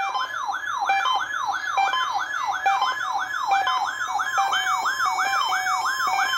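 Weather radio receiver's siren alarm going off: a yelping tone that sweeps up and drops back about three times a second, with short beeps layered over it. About five seconds in, a steady tone joins: the weather radio's warning alarm tone.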